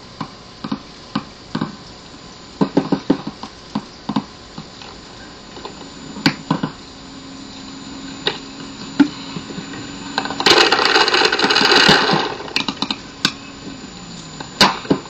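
Paintball markers firing: scattered sharp single pops, with a louder hissing rush lasting about a second and a half about ten seconds in.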